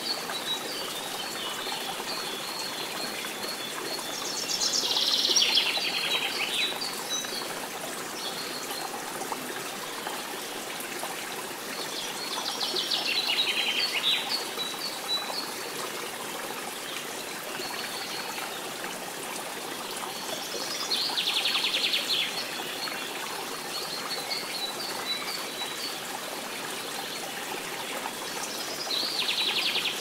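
Stream water rushing over rocks in small cascades, a steady wash, with a songbird singing over it: four loud phrases of rapid high trilling about every eight seconds, with strings of short high chirps between.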